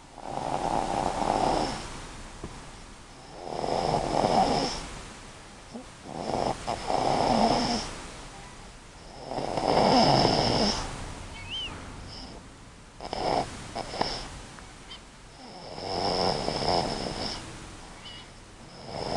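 A sleeping pet snoring in a slow, regular rhythm: about six snores, each lasting a second or so, coming roughly every three seconds.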